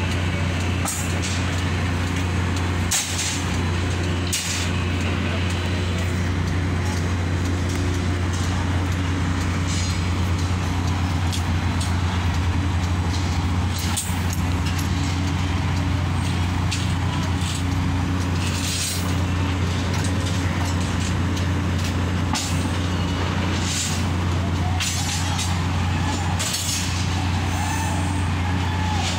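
Construction-site noise: a steady low engine hum from heavy machinery, with short knocks and hisses now and then.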